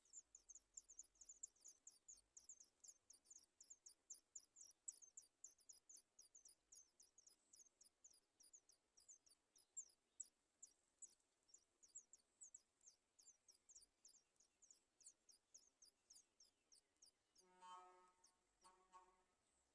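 A small bird's high, thin chirps repeated rapidly, about four a second, each a quick downward sweep. Near the end come two short, lower-pitched calls.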